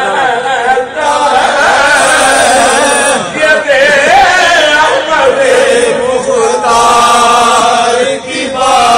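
A man's voice chanting verses of a naat in long, drawn-out melodic lines.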